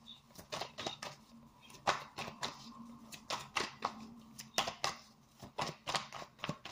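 Tarot cards being shuffled by hand: an irregular run of short snaps and clicks.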